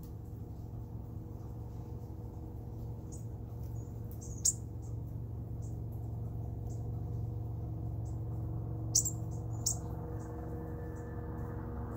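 A small songbird giving a series of short, high, thin chip notes, the loudest about four and a half and nine seconds in, over a steady low hum.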